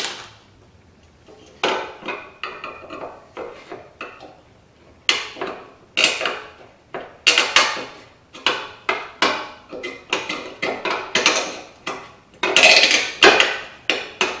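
Flathead screwdriver prying at the metal retaining clips on the ends of a rear-glass lift support strut: an irregular run of sharp metal clicks, scrapes and clatters, sparse at first and coming several a second in the second half.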